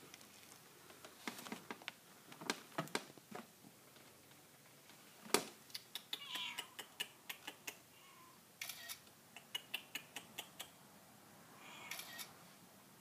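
Smartphone camera shutter clicking again and again in quick runs as photos are taken, with a faint kitten mew in between.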